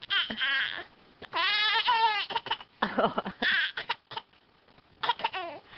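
A voice making a series of wavering, pitched calls. There is a short one at the start, a long one about a second and a half in that rises then falls, another about three seconds in, and a few short ones near the end.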